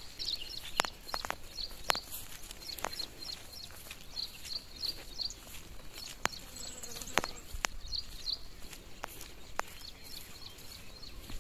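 Small birds chirping in quick high series, with scattered sharp knocks at irregular intervals over a steady outdoor hiss.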